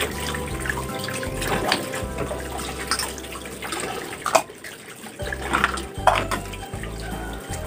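Tap water running into a stainless steel sink as plastic dishes are rinsed under it, with a few sharp knocks of the dishes being handled.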